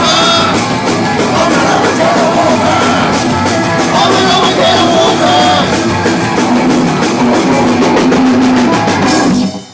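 Thrash punk band playing live: fast, pounding drum kit under guitars and vocals. It stops suddenly near the end as the song finishes.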